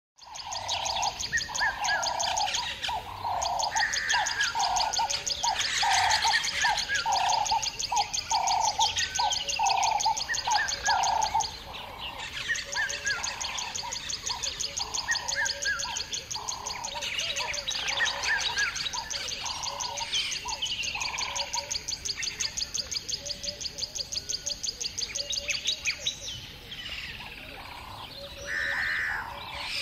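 Morning birdsong: many birds chirping and calling together, over a fast, high, evenly pulsing trill. A low call repeats about twice a second through the first twelve seconds or so.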